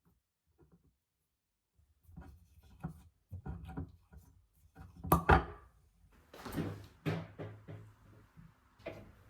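Kitchen items being handled: a run of wooden and hard knocks, thuds and rubbing, with the loudest knock about five seconds in.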